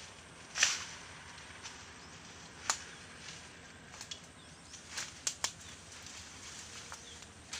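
Dry brush and weeds rustling, with a loud swish about half a second in and scattered sharp snaps like twigs breaking underfoot as someone moves through overgrown vegetation.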